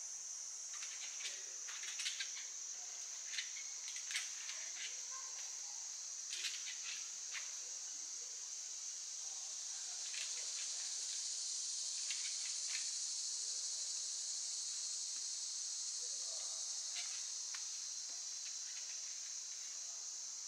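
Steady high-pitched insect chorus, unbroken throughout and a little louder in the middle, with scattered faint clicks.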